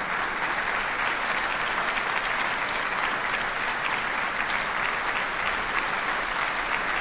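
A large concert audience applauding steadily: a dense, even patter of many hands clapping.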